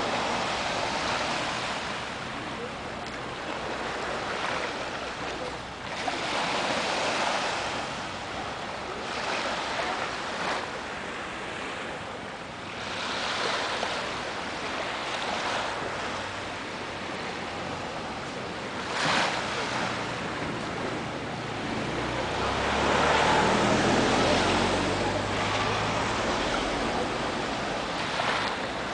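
Small sea waves washing up a sandy beach and sliding back, swelling and easing every few seconds. Near the end the surf grows louder, with a low rumble underneath.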